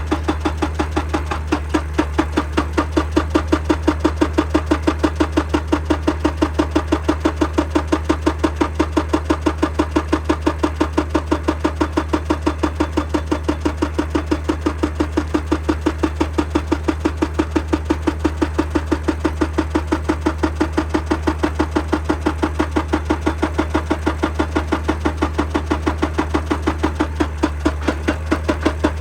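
Excavator-mounted hydraulic breaker hammering rock in rapid, even blows, about four a second, over the steady drone of the excavator's diesel engine.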